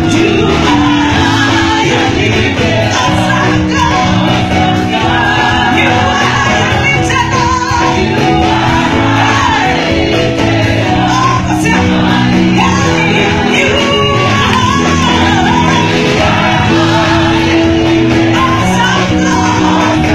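Live gospel worship music: voices singing over a band, loud and continuous.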